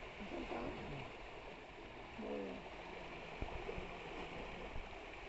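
Steady churning and splashing of water as a crowd of farmed fish thrash at the surface of a pond, with faint voices behind it.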